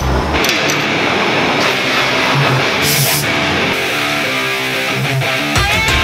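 Electric guitar music. The low bass part drops out soon after the start and comes back in near the end.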